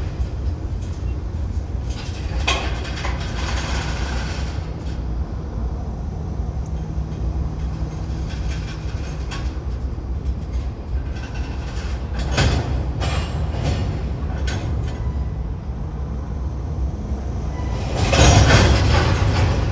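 Freight train rolling past with a steady low rumble and wheels clacking at scattered intervals. A louder burst of clatter comes near the end.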